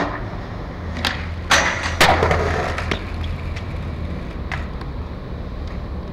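Skateboard on concrete: a sharp clack at the start, then two hard slams about half a second apart, the louder second one trailing into about a second of rattling roll, and a few lighter clacks of the board afterwards.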